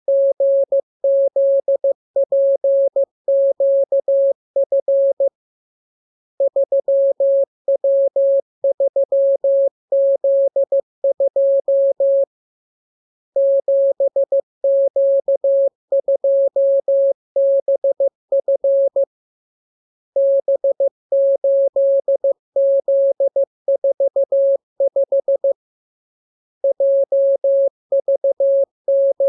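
Morse code practice tone: one mid-pitched beep keyed in dots and dashes, sending groups of characters with a pause of about a second between groups every six or seven seconds. This is code practice, the lesson's letters, numbers and signs sent as a radiogram to be copied by ear.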